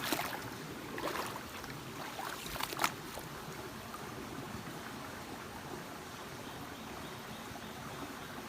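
Shallow river water flowing and trickling steadily, with a few brief sharper sounds in the first three seconds.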